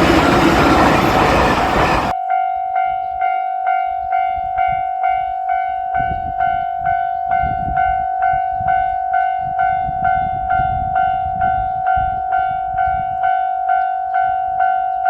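JR Shikoku 8000 series limited express train running through a level crossing, cut off abruptly about two seconds in. A level-crossing warning bell then rings on alone, about two strikes a second.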